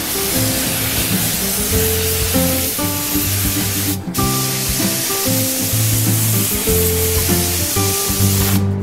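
Compressed-air spray gun hissing steadily as it sprays anti-rust paint onto iron radiator brackets. It breaks off briefly about four seconds in and stops just before the end. Background music plays under it.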